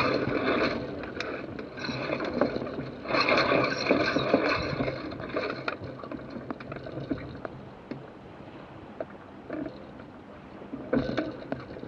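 Wind rushing over the masthead of a Sonar keelboat under sail as its spinnaker is hoisted and fills. The rush rises in gusts at the start, from about three to five seconds in, and again near the end, with light ticks and rustles from sailcloth and rigging.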